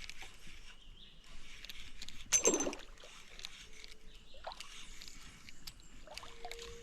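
Water splashing around a small boat while a hooked fish is brought in, with one louder splash about two and a half seconds in and scattered small clicks and knocks.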